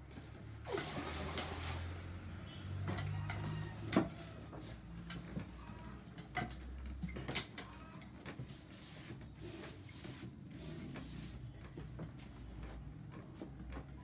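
Handling sounds of a heavy cast-iron flatiron pressed and worked over a straw hat crown on a wooden block: scattered knocks and rubbing, with a sharp knock about four seconds in.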